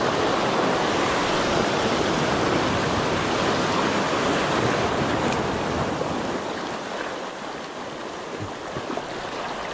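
Sea surf breaking and washing over rocks along the shoreline: a steady rush of water, a little quieter in the last few seconds.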